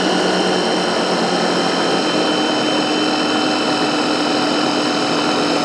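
Electric food chopper's motor running steadily at full speed with a high whine, its blade mixing a thick cake batter of eggs, sugar and flour.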